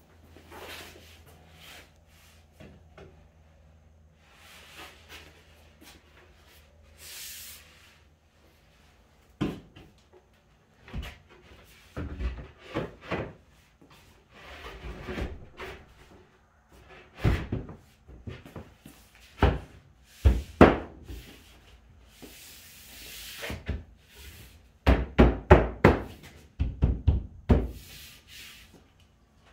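A wooden board being fitted onto a window sill: scattered knocks and thumps of wood against the frame and wall, with scraping as it slides into place, and a quick run of knocks near the end.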